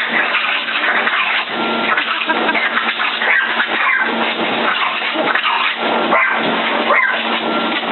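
A hair dryer running steadily with a constant hum, while a dog barks at it over and over.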